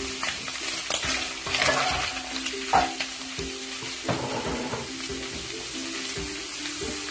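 Diced carrots and chicken frying in oil in a nonstick wok, stirred with a slotted spatula: a steady sizzling hiss with scraping stir strokes, loudest in the first three seconds.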